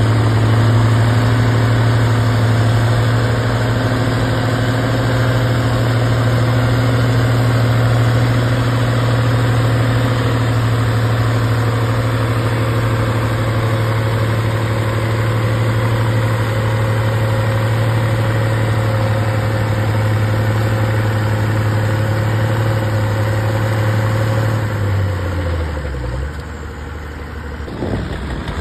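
Allis-Chalmers tractor engine running hard at a steady note as it pulls a weight sled. About 25 seconds in, the note steps down as the engine slows at the end of the pull.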